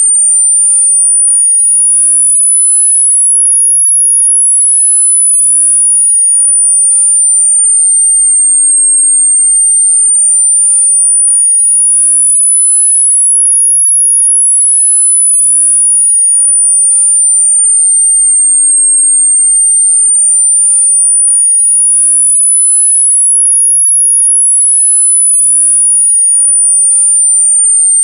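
A single pure, very high-pitched electronic tone gliding slowly and smoothly up and down, one full rise and fall about every ten seconds, at a steady loudness: a synthesized sine sweep between about 8.5 and 10 kHz made for tinnitus masking.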